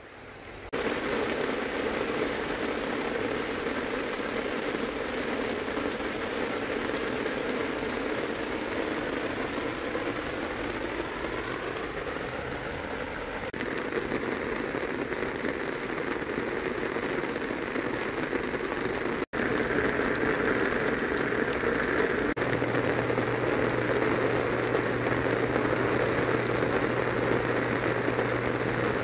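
Heavy rain pouring down steadily, splashing on plants, paving and the water of an open tank. A low steady hum joins in after about twenty seconds.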